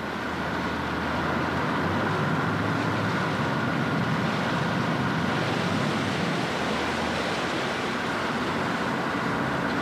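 A ferry's engine running steadily as the ferry docks, a low hum under a rushing wash of water and wind. It swells up over the first second or so, then holds level.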